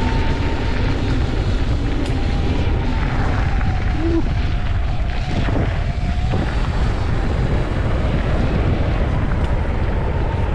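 Sur Ron electric dirt bike's motor whining steadily under way, the pitch dipping briefly about six seconds in, with heavy wind rumble on the microphone.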